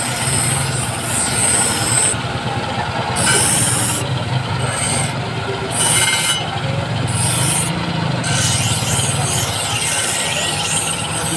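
Steel scissor blade being ground on a large spinning abrasive wheel: a steady, loud grinding hiss over the low run of the machine. The high scraping of the steel breaks off and comes back several times in the middle of the stretch.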